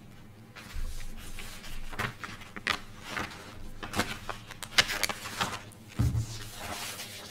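Sheets of paper rustling and crackling as pages are turned over and shuffled by hand, with a couple of soft low thumps about a second in and near the end.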